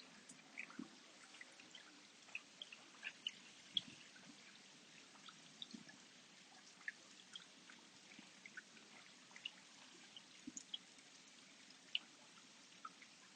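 Water dripping: scattered single drops at uneven intervals, a few a second, over a faint steady hiss.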